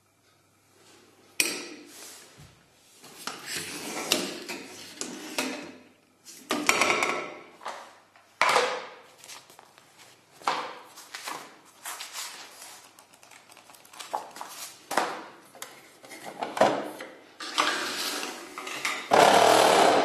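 Handling noise from loose vacuum-cleaner parts: plastic nozzles, a metal extension tube and a dust-bag pack knocked, clacked and shuffled against a tiled floor in irregular bursts. A sharp knock comes about a second and a half in, and the loudest stretch comes near the end.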